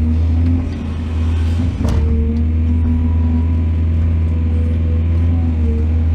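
Heavy earthmoving machinery engine running steadily with a deep, constant drone. There is a brief dip in level early on and a single sharp knock or clank about two seconds in.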